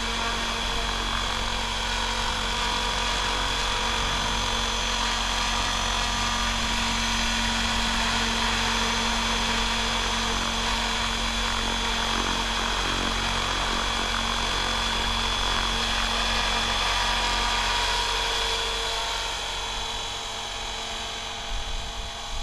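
Electric Logo 700 RC helicopter running steadily, a high whine from the motor and drivetrain over the rotor's whir. Over the last few seconds the sound drops a little and grows uneven as it flies off.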